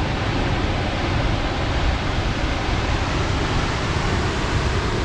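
Salt Creek Falls, a tall waterfall, pouring down in a steady, unbroken rush of falling water.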